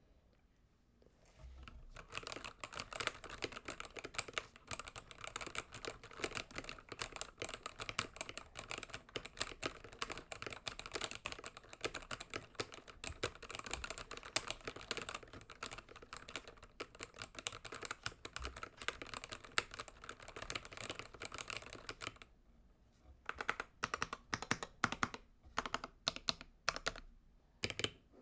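Typing on an AULA Win68 keyboard with magnetic Hall-effect switches: fast continuous keystrokes for about twenty seconds, then slower, separate key presses near the end.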